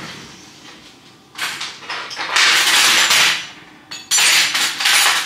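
Metal cutlery clattering and rattling in several bursts, the longest about two and a half seconds in, as a spoon is fetched from the kitchen drawer.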